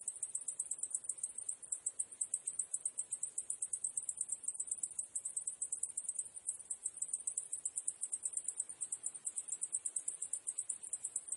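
Cicadas buzzing in a steady, high-pitched chorus, pulsing rapidly and evenly without a break.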